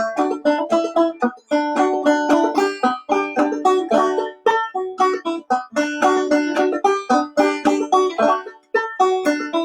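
Clawhammer banjo playing an old-time tune instrumentally, a steady stream of brushed and plucked notes with no singing.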